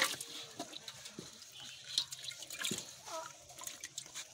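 Water splashing and dripping in a metal pot as a large catla carp is grabbed by hand and lifted out, with irregular splashes, the loudest at the start and about two seconds in.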